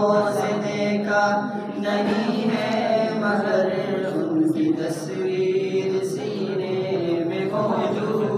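Men reciting a naat unaccompanied, a chanted devotional melody with long held notes.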